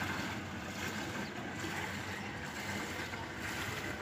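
Steady rushing outdoor noise with no distinct events, over a flooded street.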